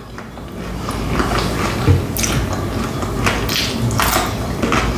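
Close-miked chewing and mouth sounds of someone eating fried chicken wings, with several short sharp wet smacks spread through it.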